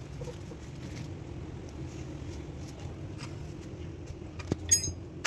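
A steady low hum with a few light clicks, then a sharp click and a short clink of metal that rings briefly near the end, typical of tools or parts being handled during a tractor clutch repair.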